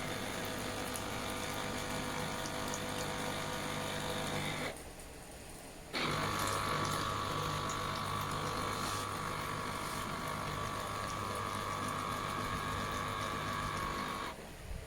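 Electric citrus juicer's motor running steadily as the reamer spins under pressed citrus. It cuts out for about a second just before the five-second mark, starts again abruptly, and runs on until shortly before the end.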